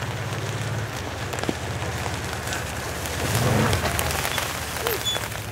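Side-by-side UTV engine running at low speed, swelling briefly about three and a half seconds in, with scattered crackling and clicking over it.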